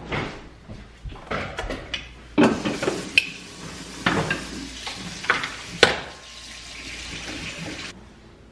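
Dishes and cutlery clinking and knocking, with water running from a tap that stops suddenly near the end.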